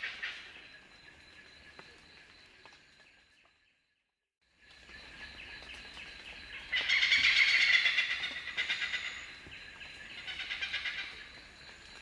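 Oriental pied hornbill calling: rapid series of loud, sharp cackling 'kak-kak-kak' notes. The loudest run comes a little past the middle and a shorter one follows near the end, after a moment of complete silence about four seconds in.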